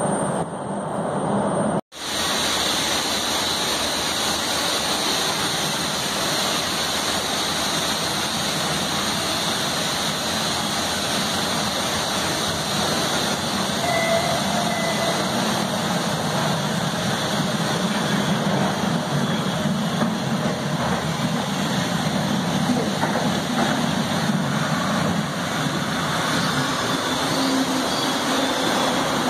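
MBTA Red Line subway train running into an underground station and along the platform, a steady noisy sound whose low hum grows stronger in the second half. There is a brief gap near the start.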